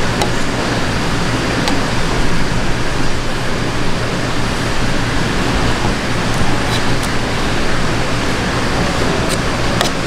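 Steady rushing background noise with no pitch to it, and now and then a faint light click of a knife against a wooden cutting board as fish is trimmed.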